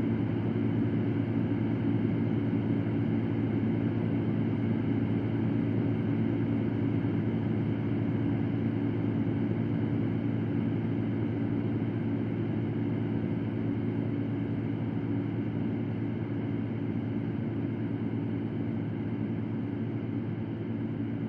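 Electric fan running steadily: an even rush of air over a deep hum, with no changes.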